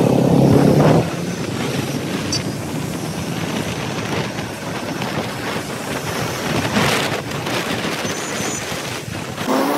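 Motorcycle engine note for about the first second, then a steady rush of wind on the microphone as the bike rides along.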